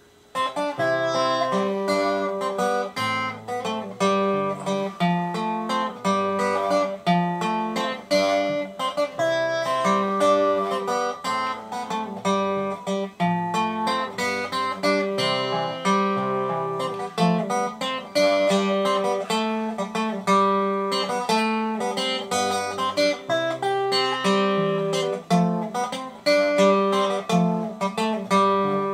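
Acoustic guitar with f-holes played fingerstyle: a waltz of picked bass notes and chords. It rolls along, with a slight halt in the rhythm now and then.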